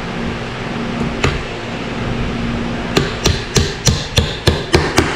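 A hammer striking a run of about eight quick, even blows, roughly three a second, in the second half, nailing small wooden strips onto a wooden box; a couple of lighter knocks come about a second in.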